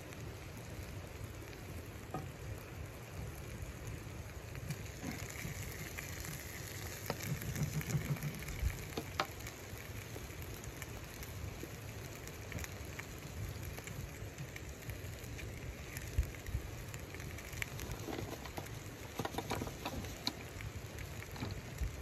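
Chicken pieces sizzling steadily in a frying pan on a wood-burning camp stove, with scattered small pops and crackles from the spitting fat.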